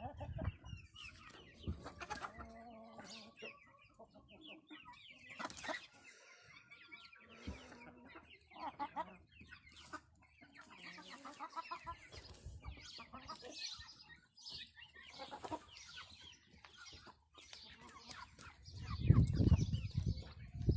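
Wyandotte chickens clucking, with many short, irregular calls from several birds. A loud low rumble comes in near the end.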